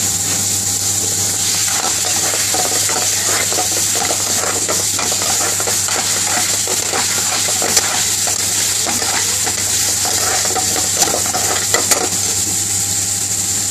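Metal spoon stirring and scraping chicken pieces round an aluminium frying pan over a gas flame, with oil sizzling. A few sharp clinks of the spoon on the pan come near the middle and toward the end, over a steady hiss and low hum.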